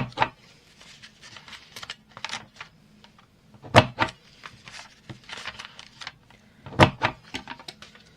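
Envelope punch board's corner-rounding punch snapping through paper three times, about three seconds apart, with lighter clicks and paper rustling between the punches as the envelope is turned.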